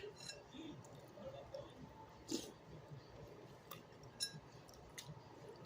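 A spoon clinking faintly against a soup bowl a few times.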